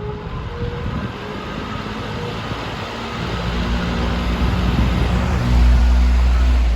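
Patton 18-inch electric fan starting up on medium speed: its motor hum and the rush of air from the blades build steadily louder as it comes up to speed. A deep low rumble sets in about five and a half seconds in as it reaches full speed.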